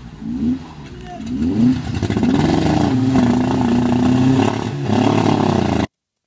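Off-road vehicle engine revved in quick short blips, then held at high revs for a few seconds under load; the sound cuts off abruptly near the end.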